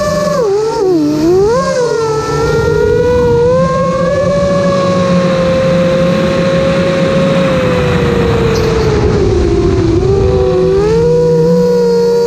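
Whine of an FPV quadcopter's electric motors and propellers, picked up by the camera on the quad. The pitch swoops down and back up with throttle changes about a second in, holds steady, then dips and recovers again near the end. Rushing air noise runs underneath.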